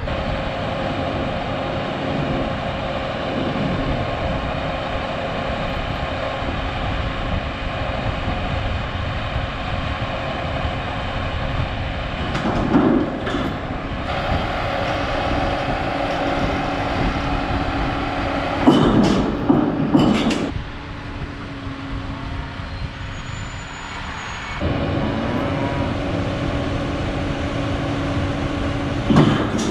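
John Deere loader tractor's diesel engine running steadily while its front loader tips a steel windbreak panel onto its side. The engine note drops for a few seconds past the middle and then comes back up, and a few louder bangs break in, the loudest about two-thirds of the way through.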